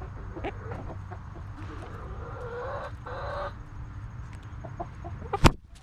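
Hen clucking, with several stronger, drawn-out calls in the middle and one sharp, loud knock near the end.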